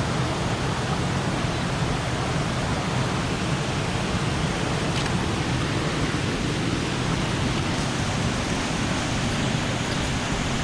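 Waterfall and fast-flowing river water rushing steadily, the river running high after days of rain.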